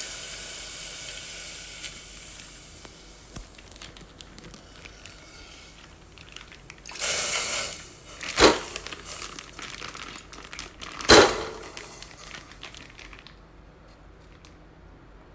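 Milk poured from a plastic milk pouch into a steel pot, a splashing hiss that fades over the first few seconds, then the plastic pouch crinkling as it is handled and squeezed, loudest at about seven, eight and eleven seconds in.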